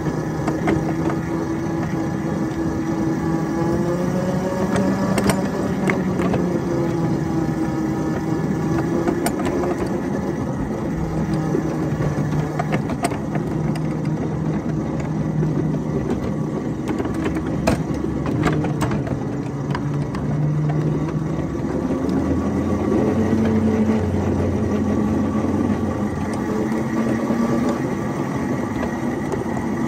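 Engine of a ride-on 7½-inch gauge locomotive running as it pulls a loaded flatcar along the track, its pitch rising and falling with speed, with a few sharp clicks along the way.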